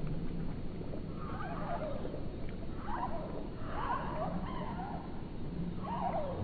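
Domestic cat lapping milk from a bowl, slowed to one-fifth speed, so each lap becomes a drawn-out, warbling slurp. The laps come in three bouts over a low steady hum.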